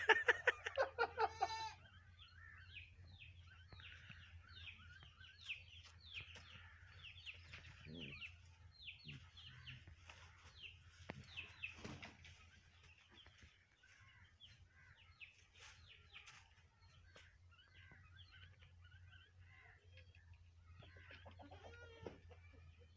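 Chickens calling: many short, high chirps and clucks repeated over most of the stretch, fainter toward the end. A brief louder pulsing call comes in the first two seconds.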